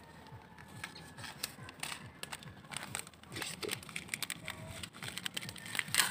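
Pork chops being mixed by hand in a wet marinade in a bowl: irregular soft handling sounds with scattered clicks and crinkles, busiest about two to three seconds in and loudest near the end.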